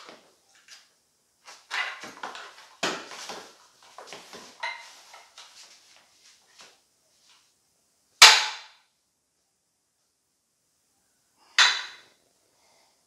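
PowerBlock adjustable dumbbells clicking, knocking and rattling as they are handled on a weight bench for dumbbell bench presses. After that come two single loud, sharp sounds about three and a half seconds apart.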